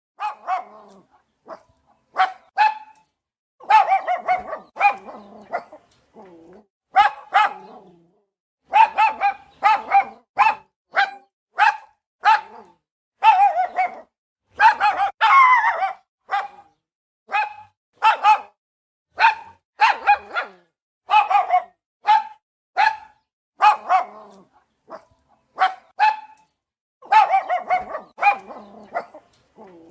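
Small dog barking over and over, in quick runs of one to several sharp barks with short pauses between them.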